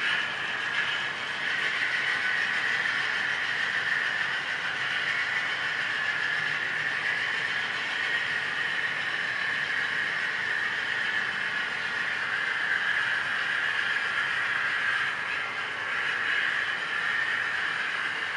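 HO scale model freight train running past, a steady hiss from the moving train with no clear changes.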